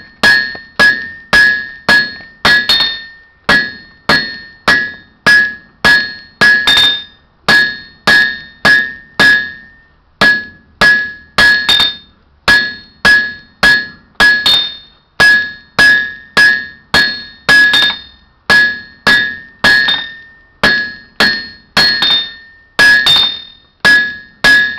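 Hand hammer striking a red-hot iron bar on an anvil in a steady rhythm, about two blows a second, each blow leaving a short high ring from the anvil. The iron is being drawn out square.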